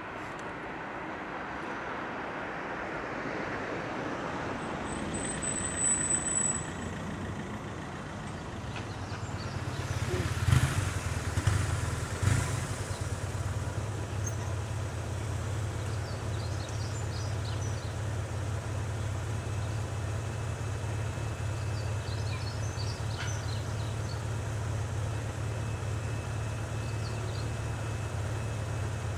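Road vehicles at a closed crossing: a passing vehicle swells and fades over the first several seconds. Then, after two loud knocks about ten and twelve seconds in, a steady low engine idle sets in from the motorcycle and van waiting at the barriers.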